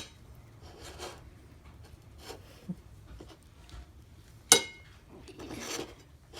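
Food-handling noises while a banana is rolled in peanut butter by hand: light rubbing and scraping with scattered small clicks, and one sharp knock about four and a half seconds in.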